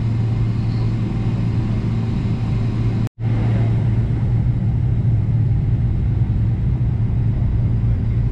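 Steady low rumble and hum of a Boeing 777-300's jet engines and airframe heard inside the cabin as the airliner taxis. The sound cuts out for a split second about three seconds in, then carries on unchanged.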